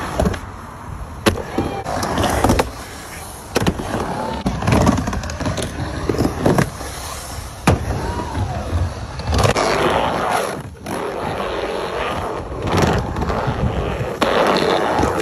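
Skateboard wheels rolling and carving around a skatepark bowl, a continuous rush, with several sharp clacks of the board and trucks hitting the surface.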